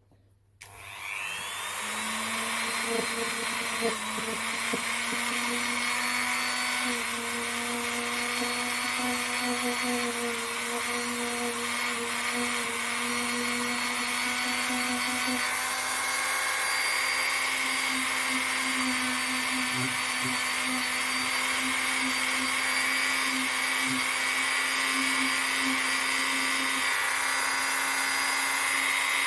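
Small power tool fitted with a wire brush spins up about half a second in and then runs steadily, lightly brushing dirt off a revolver's hammer and trigger.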